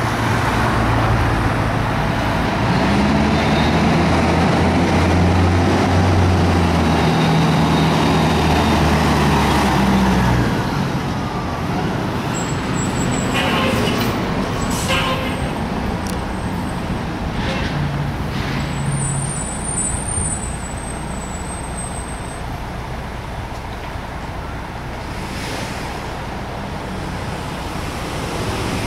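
Diesel engine of a 1992 Spartan Gladiator fire engine running loudly as it drives close by, with street traffic around it, then running more quietly once the truck pulls past. Short air-brake hisses come about halfway through.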